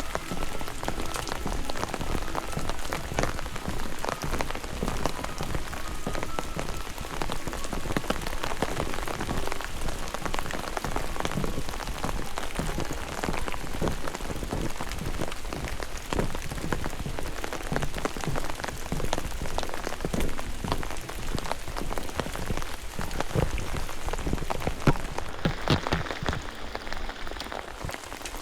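Steady rain, heard as a dense run of separate drop hits over an even hiss, with a few louder, closer drops about three-quarters of the way through.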